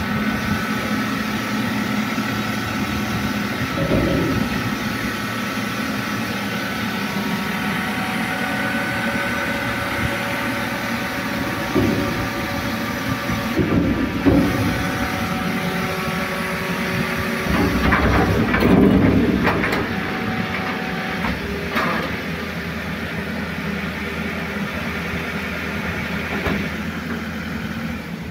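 Skip loader truck's engine running with its hydraulic arms working, lifting a steel builder's skip onto the truck bed, with a steady hum and whine and several metal clanks and knocks from the skip and its chains.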